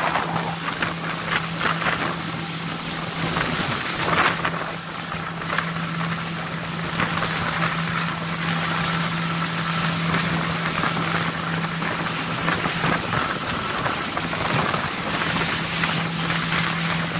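Suzuki 200 outboard motor running at speed on a small open boat: a steady hum under the rush of wind and water from the wake.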